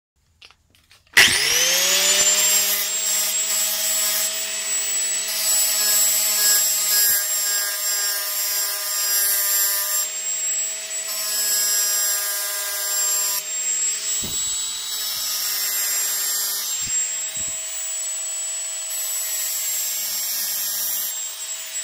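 Angle grinder switched on, its whine rising quickly as the motor spins up about a second in, then running steadily with its disc against a steel bar held in a vice.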